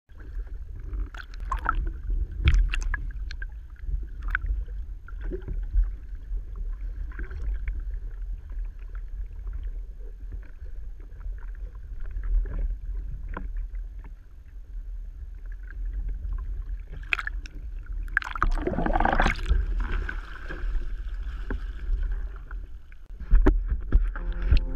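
Windsurf board planing over sea chop: water rushing and splashing against the hull, with wind buffeting the microphone as a steady low rumble. A louder rush of spray comes about three quarters of the way through.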